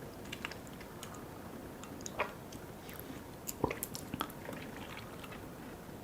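Close-miked chewing of soft, sticky food such as jelly and layered cake: wet mouth clicks and smacks, with a few sharper ones about two seconds in and a cluster around the four-second mark.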